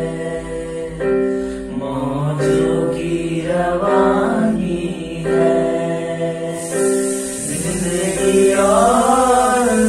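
Young male voices singing a melody together over a Casio electronic keyboard playing sustained chords that change about every second.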